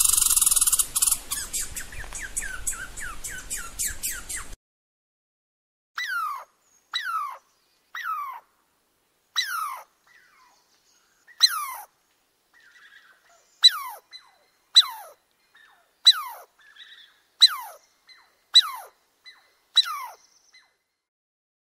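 A squirrel gives a string of short chirping calls, about one a second, each starting with a click and sweeping down in pitch. Before that, a high hiss with quick rapid chirps cuts off suddenly about four seconds in.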